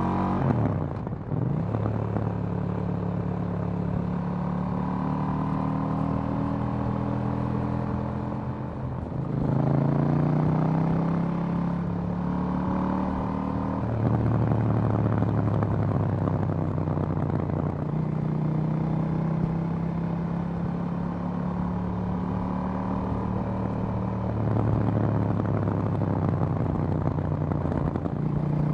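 2018 KTM 790 Duke's parallel-twin engine, stock exhaust, heard from the rider's seat while riding, with wind rush. The engine note drops about a second in as the throttle is rolled off. It climbs under acceleration about a third of the way through, then changes pitch through gear shifts and holds steady between them.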